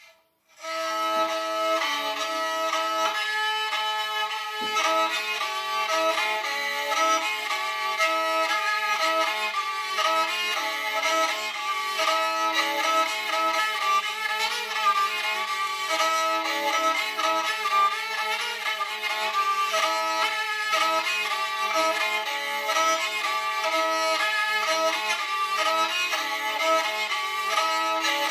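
Opole-type gęśle, a three-string medieval bowed fiddle, played with a bow: a folk melody over a steady low drone string, starting about half a second in.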